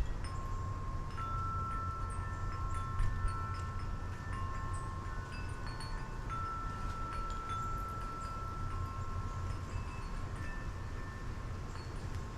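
Wind chimes ringing in the wind: several long, overlapping chime tones sounding and slowly fading, over a steady low wind rumble.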